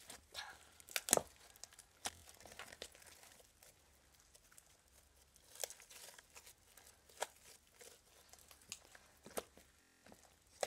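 Clear-glue glitter slime being squeezed and poked by hand, giving irregular sticky pops and crackles, loudest about a second in.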